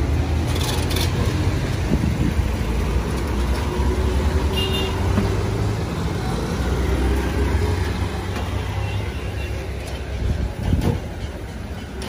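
Bus engine rumbling low and steady as it passes on the road, dying away about nine seconds in, with a brief knock near the end.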